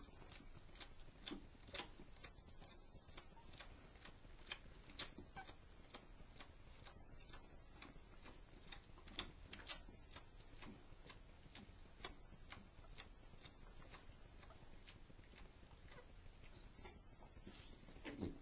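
Near silence with faint, irregular little clicks and smacks from newborn beagle puppies suckling and squirming under their mother, a few of them a little louder.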